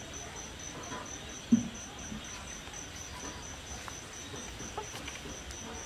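A cricket chirping steadily, a high-pitched pulse repeating about five times a second, with one short thump about a second and a half in.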